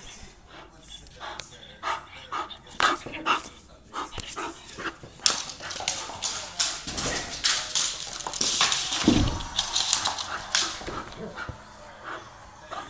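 Bull terrier running wild on a wooden floor: a rapid clatter of claws and paws scrabbling on the boards, with dog barks and yips, busiest in the middle and with a low thump about nine seconds in.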